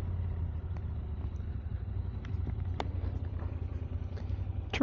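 Low, steady rumble of a motorcycle, heard through a clip-on wireless microphone, with a few faint ticks. A sharp click comes at the very end, and the sound cuts off at once.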